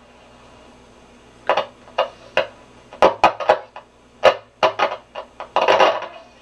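Grunow 1191 tube radio's loudspeaker crackling and popping in irregular sharp bursts as the tuning capacitor is turned between stations, starting about a second and a half in, with a longer burst of static near the end over a faint hum. The owner suspects dirty contacts on the tuning capacitor plates.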